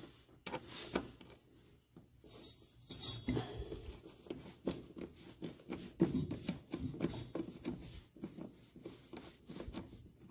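Screwdriver and hands working on a plastic engine air filter box: a run of small clicks, taps and scrapes, with rubbing in between.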